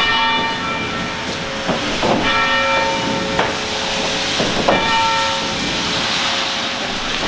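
Historical society building's bell tolling slowly in memorial, one toll per victim: struck about every two and a half seconds, each stroke ringing on under the next, over a steady hiss.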